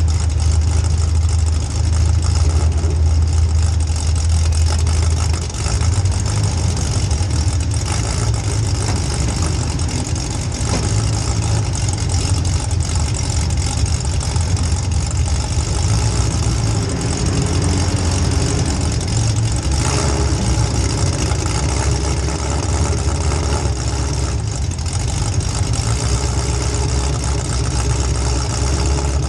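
Demolition derby car's small-block Chevy V8 running with a steady, loud low drone, mostly at idle.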